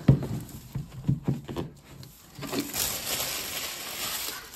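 A cardboard laptop box being handled and set down on a table: a few light knocks in the first second and a half, then a soft brushing sound for about two seconds.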